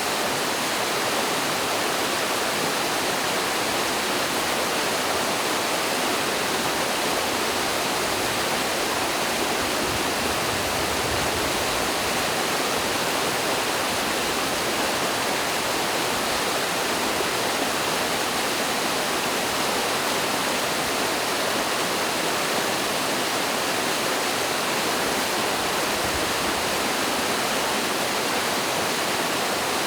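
Mountain stream falling over small cascades: a steady, even rush of water with no change in level.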